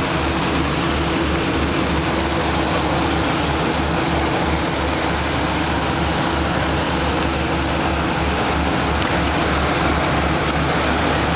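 Small motor launch's engine running steadily, heard from on deck: a low, evenly pulsing rumble and a steady hum under a continuous wash of noise.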